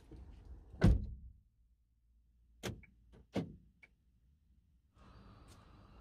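Car door shut with one loud thud about a second in, heard from inside the cabin. After it the cabin goes quiet apart from two smaller knocks a little later.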